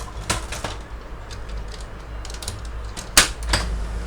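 Irregular plastic clicks and knocks of a laser printer's parts being handled, with a sharp loud click about three seconds in and another just after.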